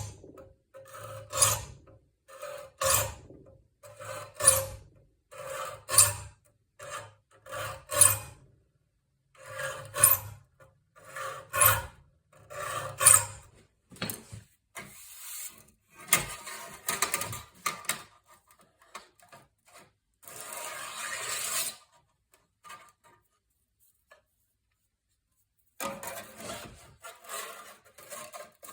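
A metal file drawn across a handsaw's teeth to sharpen them: short rasping strokes with a ringing screech, about one every second and a half, then softer, irregular filing strokes with a pause of a few seconds near the end.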